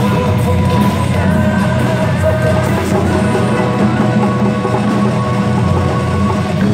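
Loud rock-style music from a children's percussion ensemble playing cajon, drum kit and hand drums, with singing over it.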